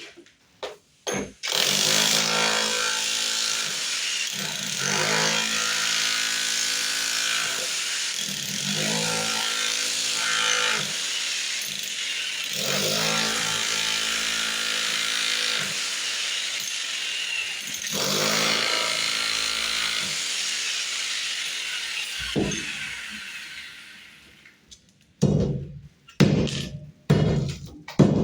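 Electric power tool running under load as it cuts or drills into masonry, its sound rising and falling every few seconds as it bites, then winding down. Near the end come several sharp knocks, like hammer blows.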